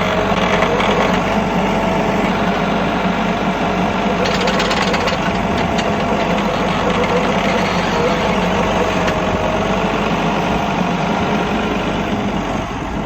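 Tractor engine running steadily while its front loader works at packed snow, with a brief rushing noise about four seconds in.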